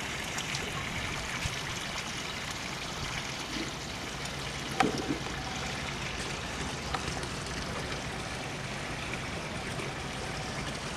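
Steady rush of running water, an even hiss with no pauses, with a brief faint sound about five seconds in.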